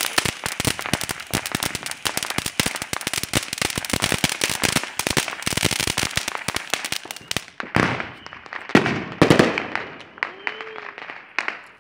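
A firework spraying a shower of sparks, crackling rapidly and densely. It stops about seven seconds in, followed by a few louder separate pops.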